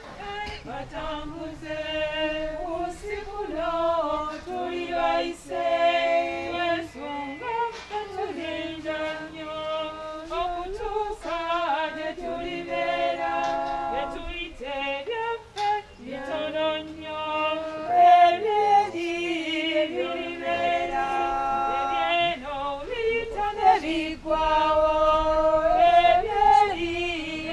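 A choir singing a hymn in phrases with long held notes.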